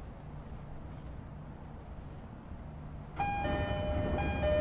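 Inside a JR East E231-0 series commuter train stopped at a station: a low steady hum, then, about three seconds in, the door-closing chime starts, a two-tone ding-dong that repeats, signalling that the doors are about to shut.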